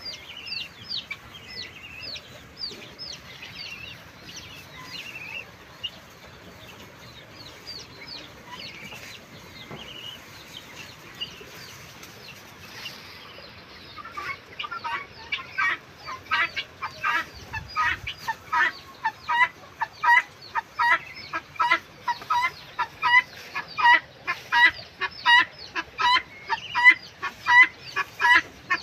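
Guinea fowl calling. The first few seconds hold quick, high, falling chirps. About halfway in, a loud call begins, repeated evenly at about two a second.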